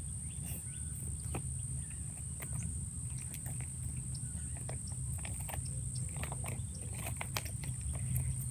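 Scattered crinkles and clicks of a plastic MRE cracker packet being cut open with a multi-tool knife, getting busier near the end, over a steady high-pitched drone of insects.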